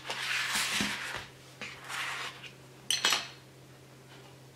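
Hands sliding and pressing soft pancakes on a plastic cutting board, a rubbing scuff for about the first second, then softer scuffs. About three seconds in comes one sharp plastic clack, the plastic heart-shaped cookie cutter set down on the table.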